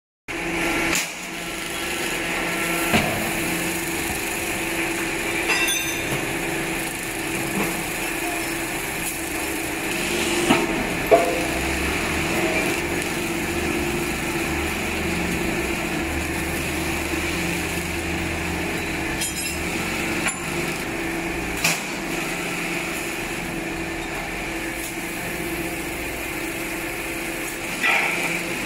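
Hydraulic presses for dismantling scrap electric motors running with a steady hum, with a handful of sharp metal clanks as motor rotors and stators are handled and pressed.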